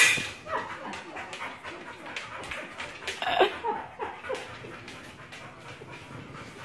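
A dog whimpering and panting, with short pitched whines, the clearest about three seconds in, among many short clicks.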